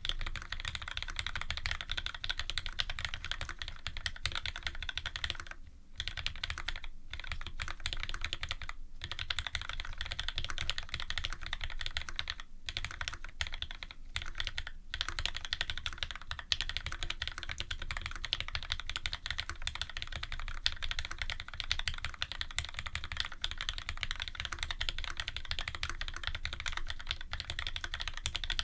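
Continuous typing on a Special Dolphin custom mechanical keyboard fitted with lubed Cherry Retooled Black linear switches, an aluminium plate and GMK keycaps: a dense stream of keystroke clacks. Several short pauses break it in the first half.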